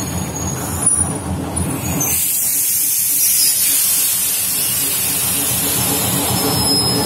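D9E diesel locomotive running as it rolls slowly past, its engine rumbling low. About two seconds in the rumble drops back and a loud, steady hiss takes over, like air venting from the brakes.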